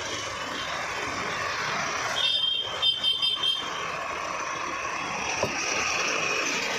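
Automatic sugarcane juice machine running steadily as juice pours from its spout into cups. A high tone sounds a few times about two to three and a half seconds in.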